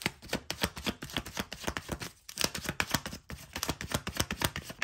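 A tarot deck being shuffled by hand: a rapid run of light card-on-card clicks, with a couple of brief pauses.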